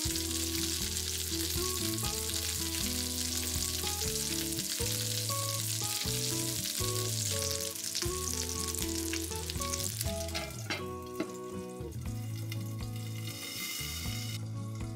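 Hamburger patties sizzling in hot oil in a cast-iron skillet, over a background of light music with a steady melody. There is a brief knock about two-thirds of the way through, and the sizzle turns muffled and quieter near the end as a glass lid goes on the pan.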